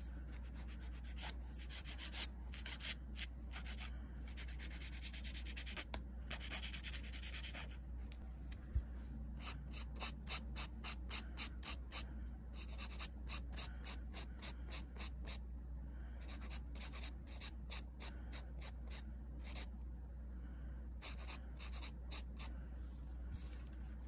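A hand-held nail file rasping back and forth across the ends of clear plastic nail tips, shaping the extensions. The strokes come in quick runs with short pauses between them.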